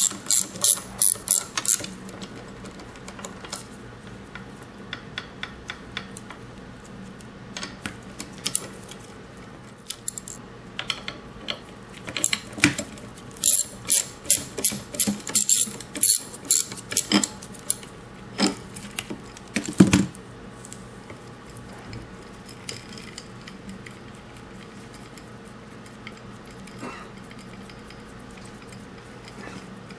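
Socket ratchet wrench clicking in quick runs as it turns bolts that force the pump off its motor, with a single louder knock about two-thirds of the way through.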